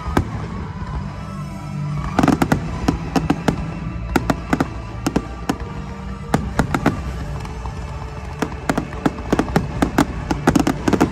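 Aerial fireworks shells bursting in a rapid barrage of sharp bangs, thickening from about two seconds in, over the show's music soundtrack.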